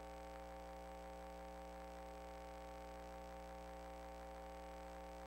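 A steady electrical hum made of several fixed tones, with nothing else over it.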